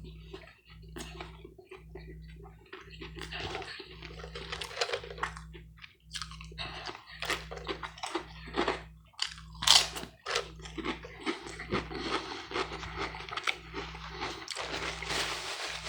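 Close-up chewing of food, with repeated crisp crunches and mouth sounds, the sharpest crunch about ten seconds in.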